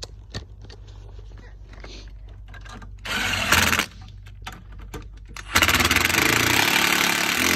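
Cordless power tool driving the golf cart solenoid's mounting bolts home: a short run of under a second about three seconds in, then a longer run of about two seconds from past the halfway point.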